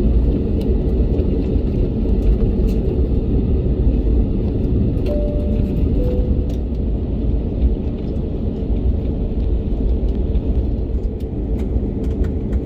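Steady low rumble inside the cabin of an Airbus A321neo taxiing on the ground, with a constant hum underneath. A short tone steps down from one note to a lower one about five seconds in.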